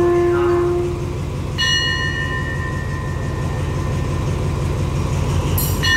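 A standing diesel train idling as a steady low rumble. A bell is struck twice, about a second and a half in and again near the end, and each strike rings on and slowly fades. A steady tone sounds over the first second and then stops.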